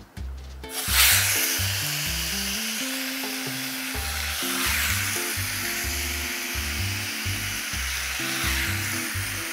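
Tomato wedges hitting hot oil in an enamelled cast-iron pot: a sudden loud sizzle about a second in, which then settles into a steady sizzle. Background music with a bass line plays throughout.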